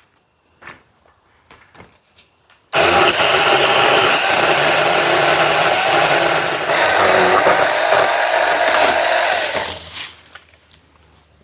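Cordless electric mini chainsaw on a pole saw starting abruptly about a quarter of the way in and running for about seven seconds as it cuts through a tree branch, then winding down. Faint clicks and rustles before it starts.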